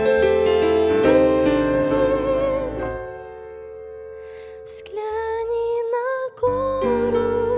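Slow, gentle hymn music with piano and long held notes. It fades out about three seconds in, and a wavering melody line comes back in about two seconds later.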